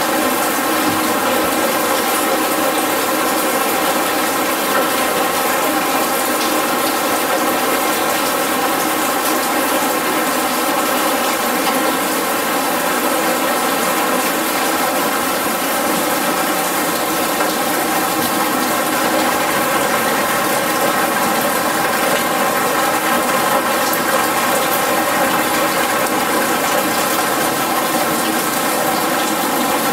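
Artificial rain: a steady, unbroken rush of water falling and streaming over the installation's surfaces.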